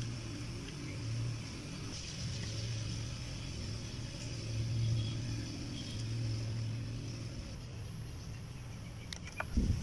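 A low mechanical hum that swells and fades, with a few faint clicks and a heavy thump near the end.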